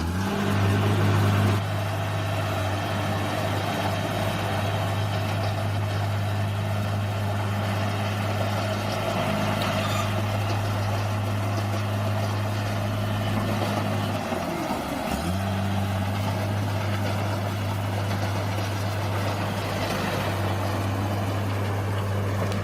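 Bulldozer's diesel engine running steadily at a constant high speed. A little past halfway, its pitch dips sharply for about a second and then recovers.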